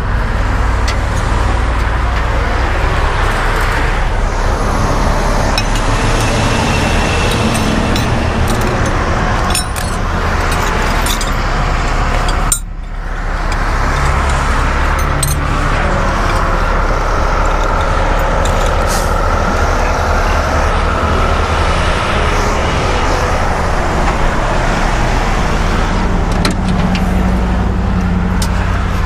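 Interstate traffic rushing past on the roadside, over the steady low hum of an idling diesel truck engine. The loudness dips briefly about halfway through.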